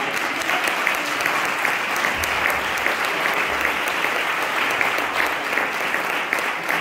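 Audience applauding: many hands clapping at once, holding steady.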